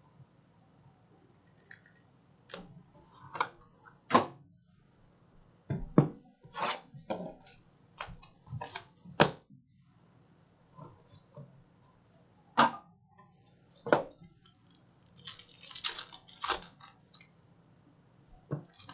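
Cardboard trading-card boxes handled and set down on a table: a series of sharp knocks and taps. Near the end, a foil card pack crinkles as it is torn open.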